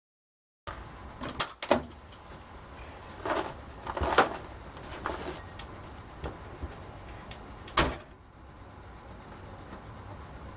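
Clicks and knocks of a car door being opened and handled as someone gets into the driver's seat, with a heavier door thud about eight seconds in, after which it is quieter.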